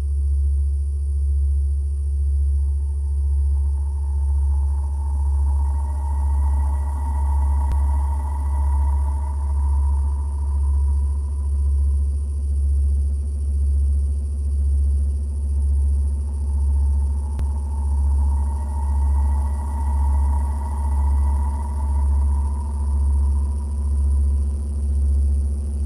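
Sound of skin heard through a stethoscope: a loud low rumble that swells and fades evenly about once every second and a quarter, with two longer, fainter rushing sounds over it.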